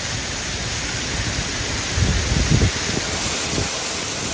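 Heavy rain and strong wind of a severe thunderstorm, a steady loud hiss, with a few low rumbles about two seconds in.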